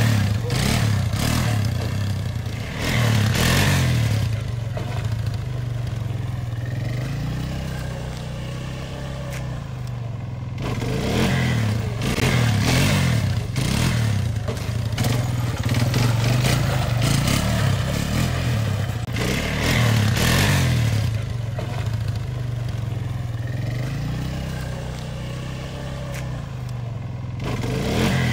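Sport ATV engine revving hard and easing off again and again as the rider holds it up on its back wheels, the pitch rising and falling with each surge of throttle, with some clattering and scraping.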